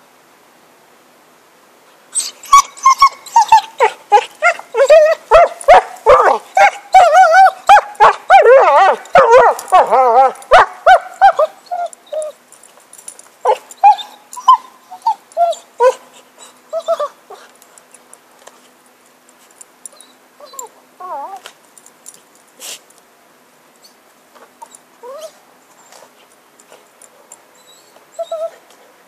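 A cocker spaniel whining and whimpering in quick, wavering high cries, densest from about two seconds in until about halfway. After that they thin out to occasional whines mixed with small cracking clicks as it chews and tears at a stick.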